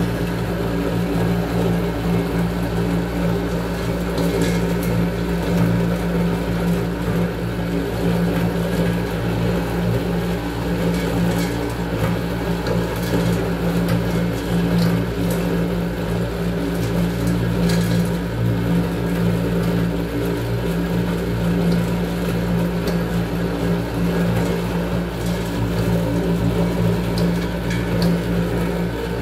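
Agmac peanut-paste machine (colloid-mill emulsifier) running steadily as it grinds peanuts into paste, its electric motor giving an even, unbroken hum.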